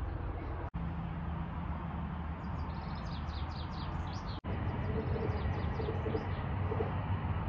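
Outdoor field ambience: a steady low rumble with small birds chirping, a quick run of short, high chirps from about two and a half to five seconds in. The sound drops out for an instant twice.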